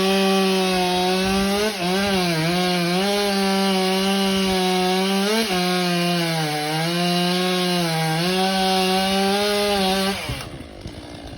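Stihl MS 400 two-stroke chainsaw running at high revs through ash wood, its pitch sagging each time the chain bites under load and then picking back up. About ten seconds in, the engine sound falls away.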